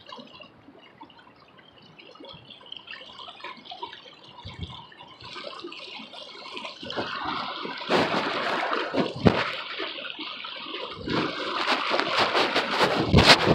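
Rushing water of a rain-swollen creek, muffled by the phone sitting in a back pocket and growing louder about halfway through. Several sharp thumps and rubbing noises from the pocket join it in the second half.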